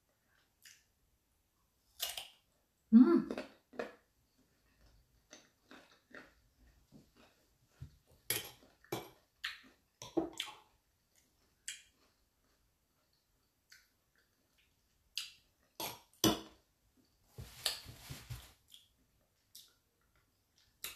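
Close-up eating sounds of crunchy raw green carabao mango being bitten and chewed, with irregular sharp clicks and clinks of a plate or utensil. The loudest burst comes about three seconds in.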